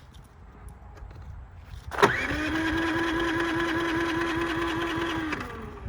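Electric starter motor of a Predator 3500 generator cranking with a steady whine for about three and a half seconds, starting about two seconds in and winding down near the end, without the engine catching: a failed start.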